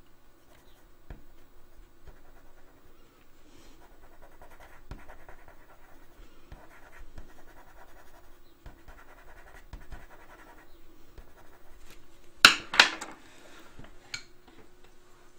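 Caran d'Ache Pablo dark grey coloured pencil scratching lightly on drawing paper in short strokes, coming in spells. Near the end there are two sharp knocks close together, the loudest sounds.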